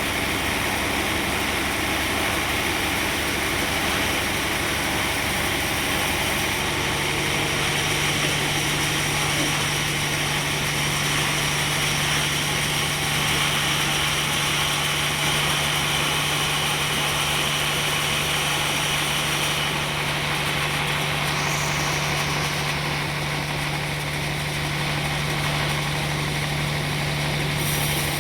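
Sawmill machinery running steadily, a continuous mechanical noise; a steady low hum joins about six seconds in.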